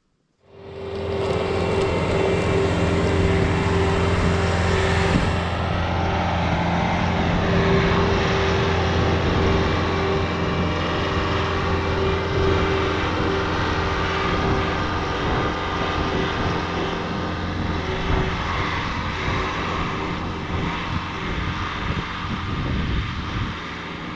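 Diesel engine of a Bobcat track loader running steadily under throttle as the machine drives across the ground. It starts suddenly about half a second in and eases slightly as the loader moves away.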